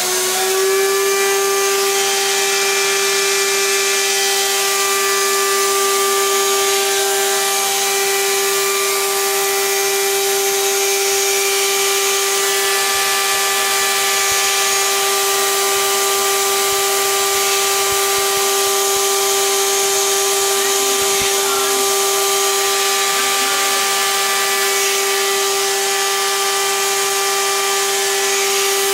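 2x72 belt sander driven by a 24,000 RPM spindle motor, winding up to full speed in the first half second and then running steadily at top speed with a loud, even, high-pitched hum. The owner puts part of that hum down to the frame resonating, because it is only clamped to a steel plate without isolators.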